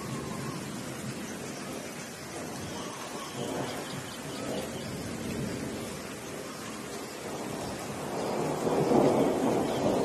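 Steady rain with thunder rumbling; the thunder swells louder near the end.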